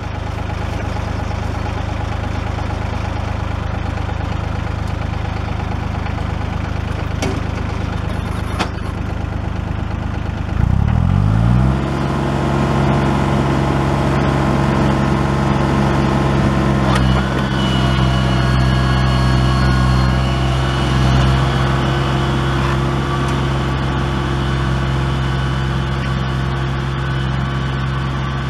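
Old 1981 tractor engine idling steadily, then revving up about ten seconds in as the throttle is opened and running on at a higher, steady speed as the tractor pulls the two-bottom plow away. A couple of sharp clicks come just before the rev-up.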